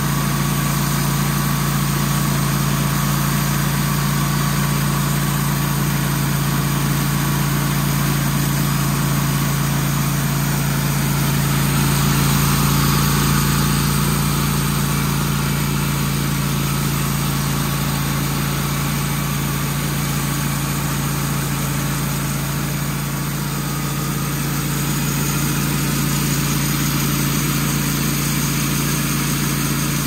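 Portable band sawmill running steadily, its blade cutting lengthwise through a log: a steady motor hum under the cutting noise, swelling slightly about twelve seconds in.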